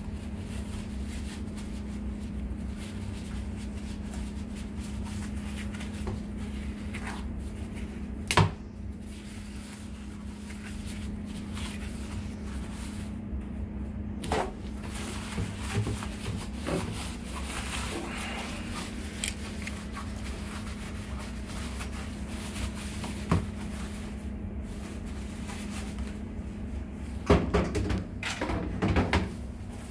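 Hard plastic washer tub parts being handled, knocking and clattering now and then over a steady low hum. One loud knock comes about eight seconds in, and a burst of clatter comes near the end.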